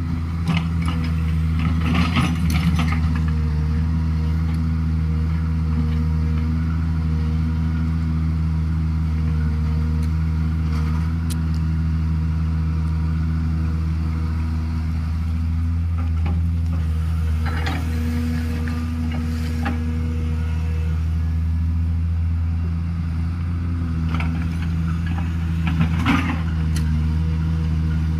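JCB 210LC crawler excavator's diesel engine running steadily under digging load, with the steel bucket scraping and clanking against gravelly rock in short bursts: near the start, in the middle, and again near the end.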